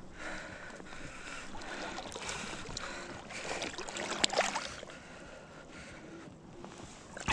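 Shallow river water sloshing and lapping as an angler moves through weeds, with small splashes and one sharp click about four seconds in.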